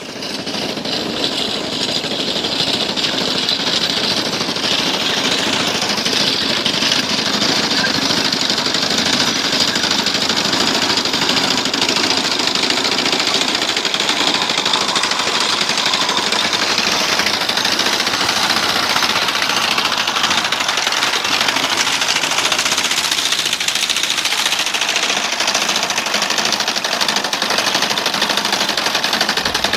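Horse-drawn, ground-driven sickle bar mower, its cutter bar rattling steadily as it cuts pasture grass.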